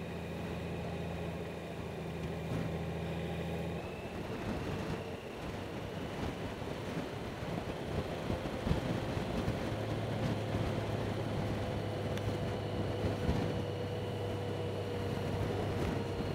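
Honda Gold Wing motorcycle under way, its flat-six engine running steadily under wind and road noise. The engine hum changes about four seconds in and again near ten seconds, as the speed or gear changes on its DCT automatic gearbox.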